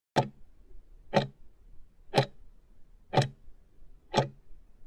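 Clock-tick sound effect of a quiz countdown timer: five sharp ticks exactly one second apart as it counts down the last five seconds.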